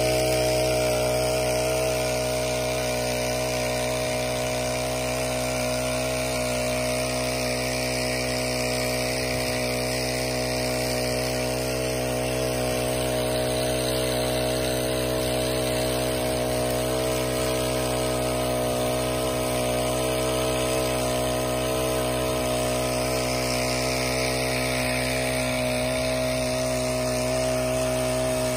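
Small portable water pump's Honda four-stroke engine running steadily at high speed, pumping, with the rush of its discharge jet spraying into the water.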